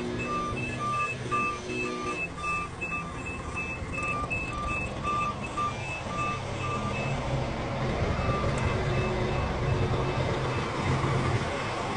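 A crane's reverse alarm beeping about twice a second over its running diesel engine as it backs up; the beeping stops about seven seconds in and the engine grows louder.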